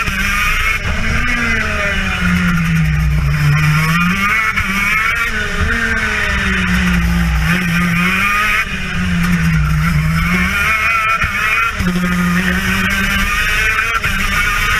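Two-stroke racing kart engine, a TM KZ10B, running hard on track, its pitch climbing and dropping again and again as the kart accelerates out of corners and slows into the next.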